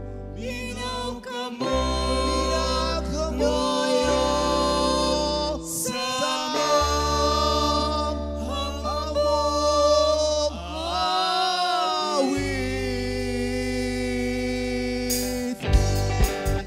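A woman singing a Christmas song into a microphone with a small live band: long held low bass notes and sustained guitar chords under her voice. Near the end the band comes in with a quick, even strummed and drummed rhythm.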